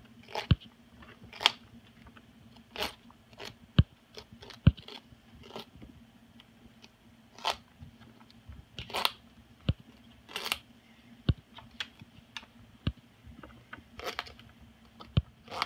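Moluccan cockatoo biting and shredding butternut squash with its beak: sharp, separate crunches and snaps at an uneven pace, roughly one a second.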